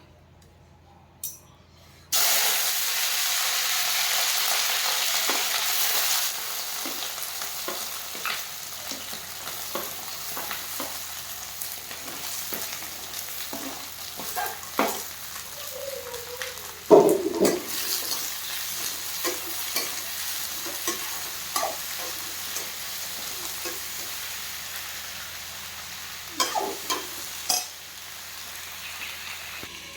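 Food hitting hot oil in a cooking pan: a sizzle starts suddenly about two seconds in, is loudest for the next few seconds, then settles to a steadier sizzle. A spoon clinks and scrapes against the pan throughout, with one sharp, loud knock about halfway through.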